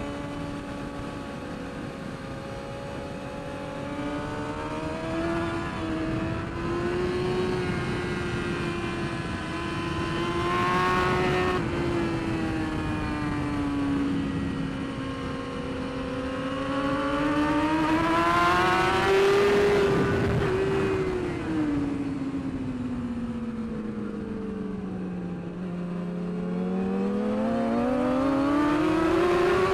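BMW S1000RR inline-four race engine heard from on board at track speed, its revs rising and falling through the corners over wind rush. The pitch climbs with a brief break near twelve seconds as it shifts, drops to its lowest around the 25-second mark as the bike slows into a corner, then climbs steeply again near the end under hard acceleration.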